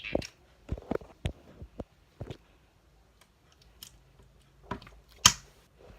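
Old homemade slime being squeezed and poked by hand, giving irregular soft clicks and small sticky pops, with one sharper pop about five seconds in.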